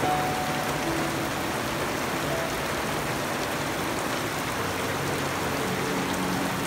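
Steady rain falling on garden foliage and wet ground, an even hiss.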